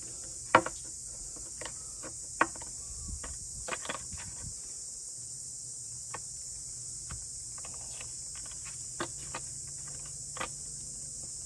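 Scattered light clicks and knocks of hands handling tools and drum parts at the workbench, the sharpest about half a second in and again near two and a half seconds, over a steady high-pitched hiss.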